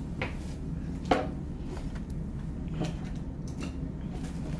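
Small parts being handled and set down on a table: scattered clicks and light knocks, the loudest about a second in. A steady low hum runs underneath.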